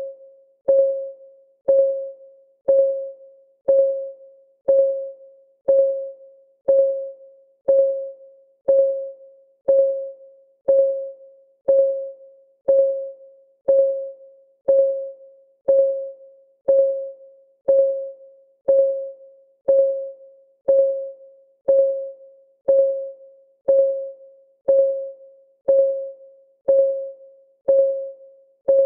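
Countdown timer's clock ticking sound: one short, pitched tick each second, each ringing briefly and fading before the next, at an even pace throughout.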